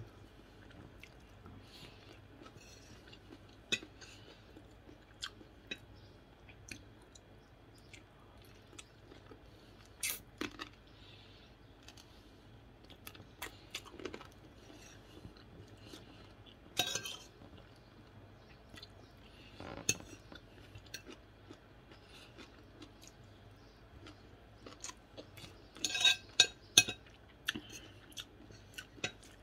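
A person eating close to the microphone: chewing and crunching food, with a spoon clinking against a plate now and then. Near the end comes a quick run of louder clicks and clatter.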